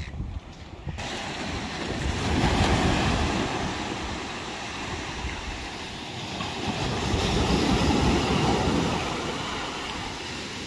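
Small surf waves breaking and washing up a sandy beach, swelling twice, with wind buffeting the microphone.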